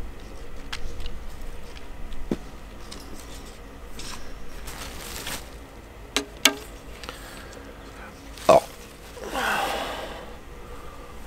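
An arrow being handled and nocked on a longbow string: two sharp clicks about six seconds in, a louder click near eight and a half seconds, then a short rustling scrape.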